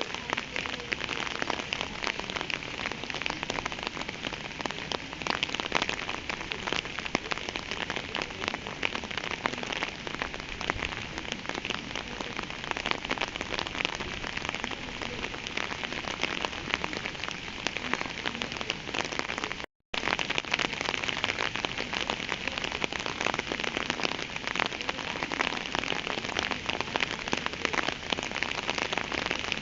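Steady rain, a dense patter of many separate drops. The sound cuts out completely for a split second about two-thirds of the way through.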